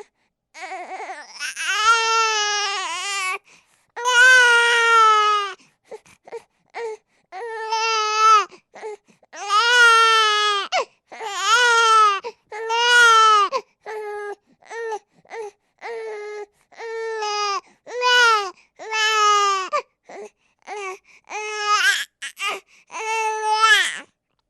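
A baby crying: a run of repeated high-pitched wails, each one to two seconds long, with short breaths and small sounds between them.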